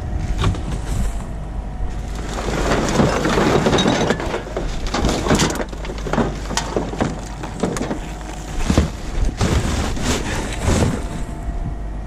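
Flattened cardboard and empty plastic bottles being handled in a ute tray: scraping and crinkling with many sharp clicks and knocks, and a dense rustle between about two and five seconds in.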